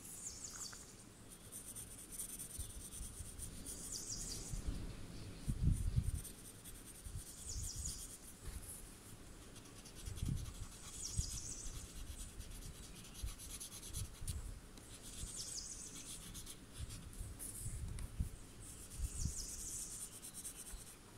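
Paper blending stump rubbing graphite into a paper tile, then a pencil scratching short strokes, in soft, repeated passes. A few dull bumps sound against the table, the loudest about six seconds in.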